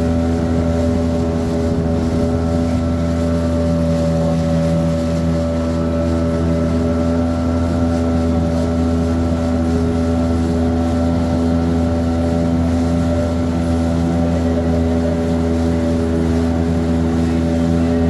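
Outboard motor of a small aluminium boat running steadily at cruising speed, its pitch holding constant throughout, with water rushing and splashing along the hull.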